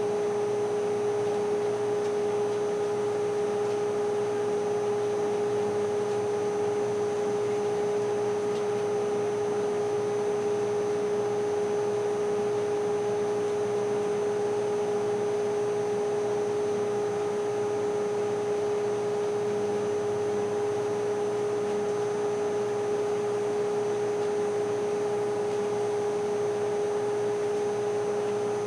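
A steady machine hum: one strong, unchanging tone with fainter higher tones over a hiss.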